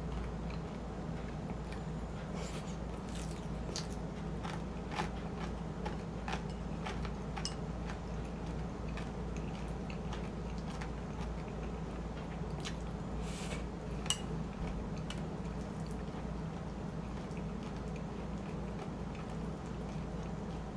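Close-miked eating of shrimp chili and rice: chewing and wet mouth sounds with scattered sharp clicks, over a steady low hum.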